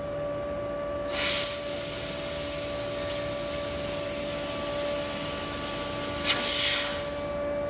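Laser tube cutting machine running while its head cuts a metal tube: a steady machine hum with a faint constant whine, broken by two loud hissing bursts, about a second in and again near the end.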